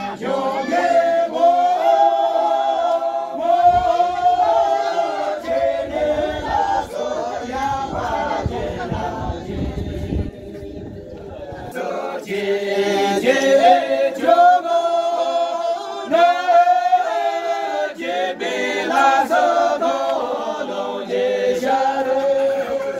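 A group of villagers singing a traditional folk song together, unaccompanied, as they dance in a line. The singing breaks off for a few seconds about eight seconds in, then starts again.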